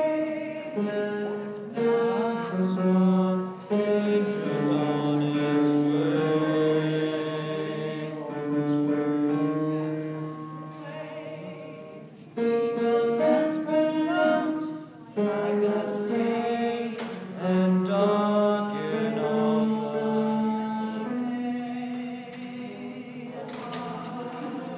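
Men's vocal group singing in close harmony, several voices holding chords together in slow phrases, with a couple of brief breaks between phrases.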